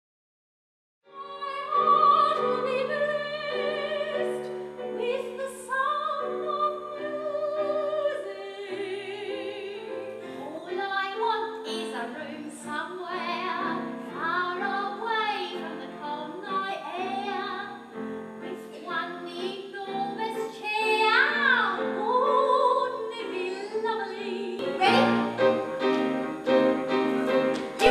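A woman singing in a classical, operatic style with piano accompaniment, starting about a second in.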